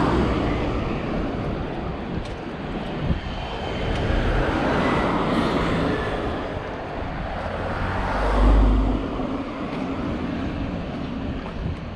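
Road traffic passing close by: cars and vans going by one after another, each a swell of tyre and engine noise that rises and fades. The loudest pass, with a deep rumble, comes about eight seconds in.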